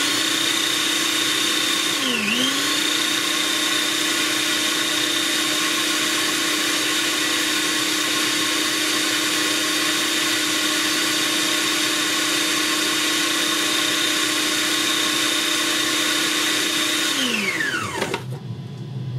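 Small electric blender running steadily as it blends a few tablespoons of baked beans. Its pitch dips briefly about two seconds in, then holds, and near the end the motor winds down and stops.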